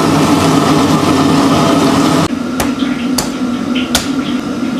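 Steady roar of a commercial wok stove as broth is poured from one steaming wok into another. This cuts off about halfway through, followed by three sharp cleaver chops on a wooden chopping block, roughly half a second to a second apart, as a raw goose is butchered.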